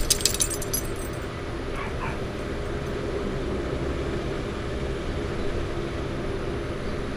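Small dog shaking itself, the metal tags on its collar jingling for about the first second. After that a steady hum carries on in the background.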